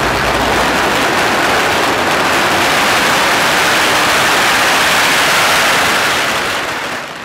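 Steady, loud rushing noise of a camera drone's rotors and air wash on its onboard microphone, fading out near the end.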